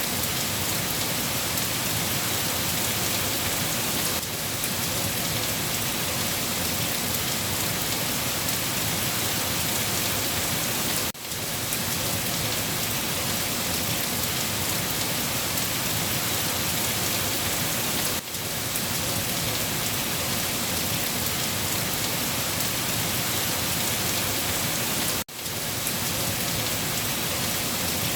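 Steady, dense rainfall hissing on surfaces. The sound dips for an instant three times, about seven seconds apart.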